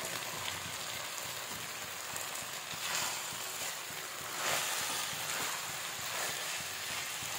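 Noodles, vegetables and sauces sizzling in a hot pan while they are stirred and tossed together: a steady hiss that swells a few times.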